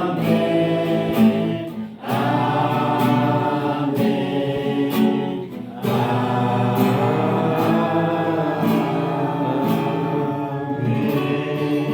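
A group of voices singing a song over music with a steady beat, the sung phrases pausing briefly about two and six seconds in.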